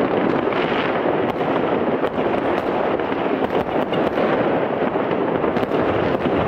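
Fireworks and firecrackers going off continuously: a dense, unbroken crackle of many overlapping bangs and pops.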